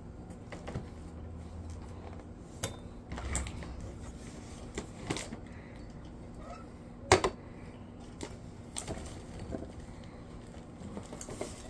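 Handling noise as the camera is set up and repositioned by hand: scattered light knocks, clicks and rustles, the sharpest knock about seven seconds in, over a faint steady room hum.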